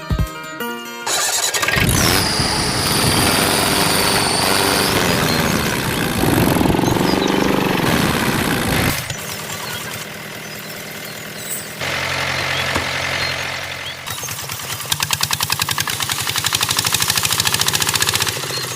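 Engine starting and running, with a rapid, even chugging pulse in the last few seconds.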